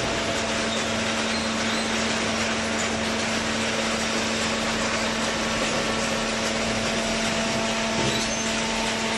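Hydraulic baler machine running: a steady hum over a broad, even machine noise.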